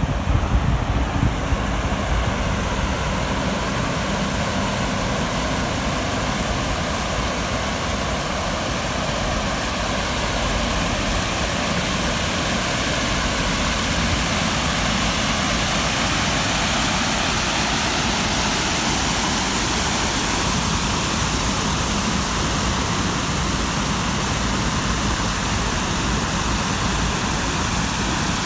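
Steady rush of shallow river water pouring over a low concrete weir, with a low rumble underneath.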